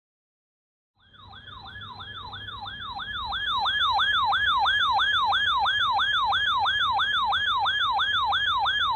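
Electronic siren in a fast yelp pattern, about three pitch sweeps a second. It starts about a second in and grows louder over the next few seconds, then holds steady.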